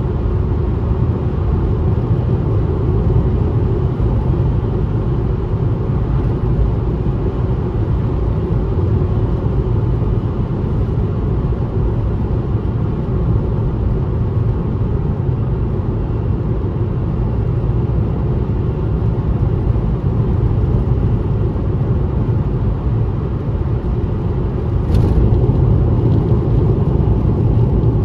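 A car driving on the highway: steady low rumble of road and engine noise, with one faint click near the end.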